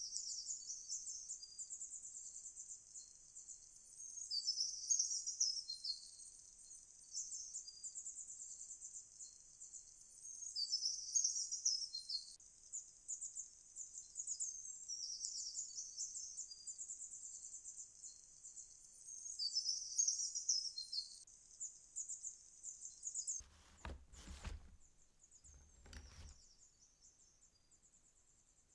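Dusk outdoor ambience: a continuous high-pitched chirring, with louder chirping phrases about every seven or eight seconds. It fades near the end, where two dull thumps sound about two seconds apart.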